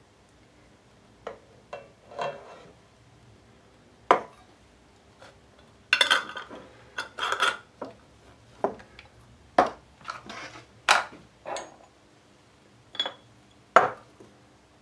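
Clatter of jam-jar filling: a metal ladle clinking against a stainless steel jam funnel, glass jars knocked down on a wooden table and a metal twist-off lid screwed on. A scattered series of separate clinks and knocks with short pauses between them.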